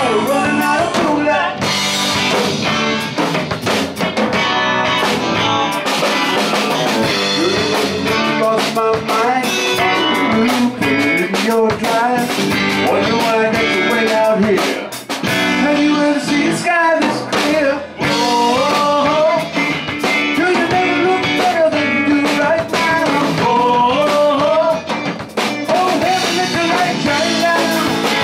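Live band playing electric guitar, electric bass and drum kit together.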